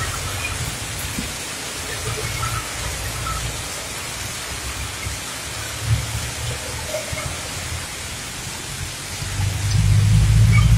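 Heavy rain pouring steadily, with a low rumble underneath that swells loudly near the end.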